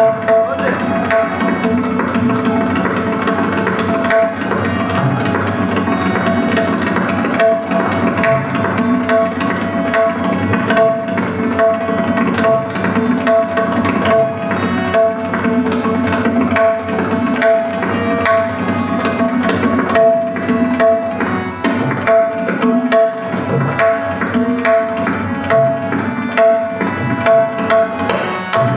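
Tabla solo: a dense run of strokes on the tabla pair over a harmonium that repeats the same short melody in steady held notes, the lehra that keeps the cycle.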